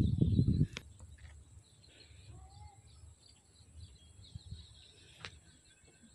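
A low rumbling noise on the microphone stops under a second in. After it comes faint open-air ambience with scattered small bird chirps and a couple of single clicks.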